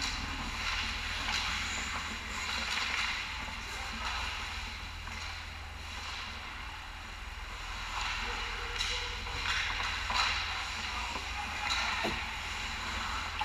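Ice hockey play around the net: skate blades scraping and carving the ice, with sticks clacking and a sharp knock near the end, over a steady low hum.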